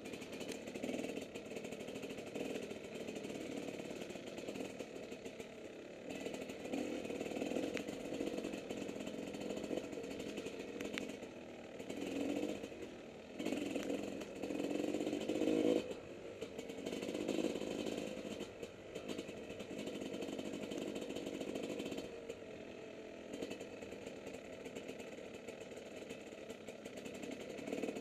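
Motocross bike engine running under way, revs rising and falling with the throttle, with louder stretches of throttle about halfway through.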